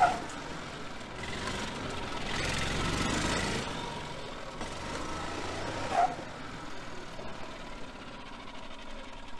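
A 1985 Yamaha G2 gas golf cart's small engine runs as the cart drives around on its newly installed clutch, swelling as it passes close two to three seconds in, then fading. There are two brief chirps, one at the start and one about six seconds in.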